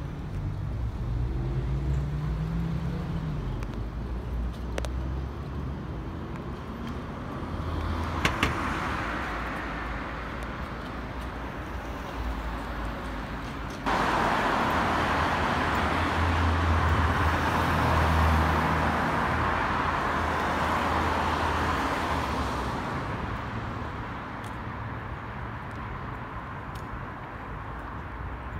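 Low rumble of a moving vehicle. About halfway through it cuts to louder road traffic: cars passing at speed, with tyre and engine noise that swells and then fades.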